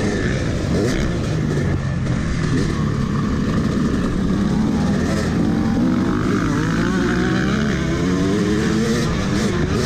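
Yamaha YZ250 two-stroke single-cylinder dirt bike engine under hard riding, its pitch rising and falling as the throttle is worked and the gears change.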